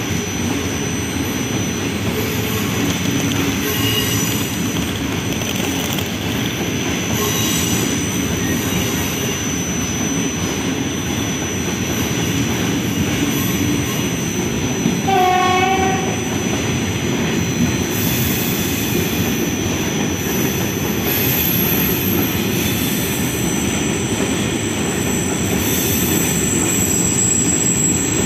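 Passenger train of PKP Intercity and České dráhy coaches rolling past, a steady rumble of wheels on the rails. About halfway through there is one brief pitched tone lasting about a second.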